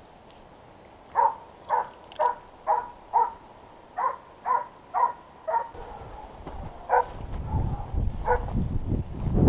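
A hunting dog barking in a steady run of about two barks a second, then a few more spaced out near the end. A low rushing noise builds up in the second half.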